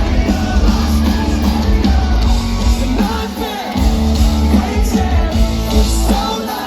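Pop-punk band playing live at full volume, with electric guitars, bass and drums under singing. The low end drops out briefly twice, about halfway through and near the end.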